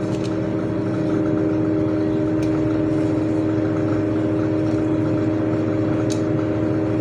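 Steady motor hum with several fixed pitches, with a few faint clicks from a spoon in a bowl of sugar as sugar is sprinkled over bread.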